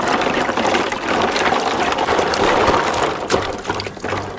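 Water pouring steadily into a basin of freshly scrubbed freshwater mussels, filling it to soak them in salt water so they purge their dirt.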